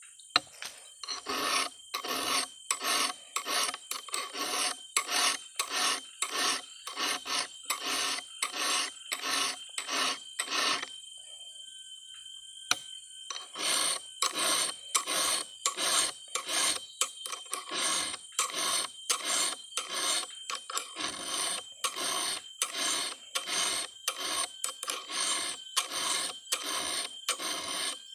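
Round file rasping back and forth across the cutters of a Stihl 070 chainsaw chain, sharpening it, about two strokes a second. The strokes stop for a couple of seconds a little before halfway, then carry on steadily.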